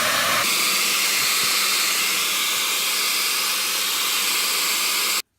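Hand-held hair dryer blowing hot air on iced-up fridge back panels to thaw them free: a steady, loud blowing rush that brightens about half a second in and cuts off suddenly near the end.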